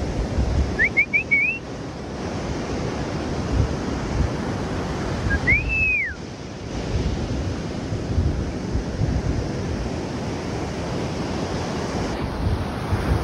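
Wind buffeting the microphone over the steady wash of ocean surf. A few short rising whistles come about a second in, and one longer whistle rises and falls near the middle.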